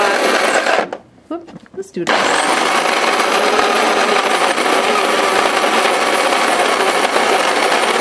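Capresso 559 electric burr coffee grinder grinding coffee beans on its finest setting, a steady grinding whir. It cuts out about a second in and starts again a second later with a short rising whine.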